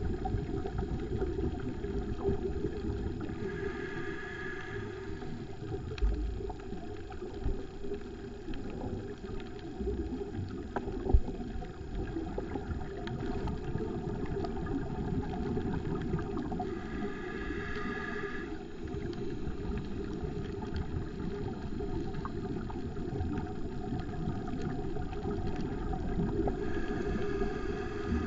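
Muffled underwater noise heard through a GoPro housing: a steady low rumble, broken three times by a scuba diver's breath through the regulator, each a short hissing whine lasting about a second and a half. A single sharp knock about eleven seconds in.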